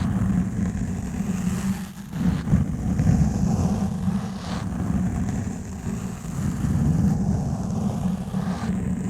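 Exfoliation gloves rubbing and scratching over a foam microphone cover: a continuous low rubbing noise that swells and eases in slow strokes, with a brief break about two seconds in.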